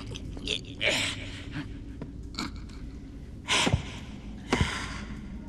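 An animated animal character's short straining gasps and grunts while heaving wooden crates about, with two louder bursts near the end that fall steeply in pitch.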